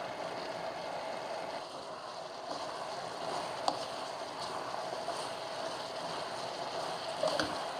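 Pork and chillies sizzling and bubbling in a thick curry sauce in a frying pan, stirred with a wooden spatula: a steady, even sizzle with one faint click a few seconds in.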